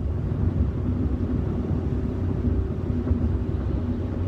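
Steady engine and road noise heard inside the cab of a Chevy 4x4 pickup cruising on a 55 mph road: a continuous low rumble with a faint steady hum.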